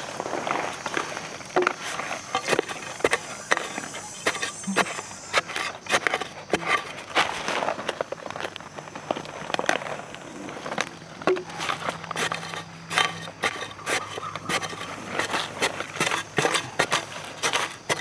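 Irregular crackles, scrapes and light knocks of dry leaf litter and soil being stepped on and worked through on the forest floor. Insects shrill faintly and steadily behind it.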